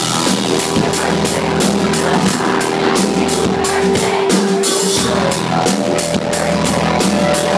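Live country band playing amplified through a concert hall: a drum kit keeps a steady beat under guitar and held notes.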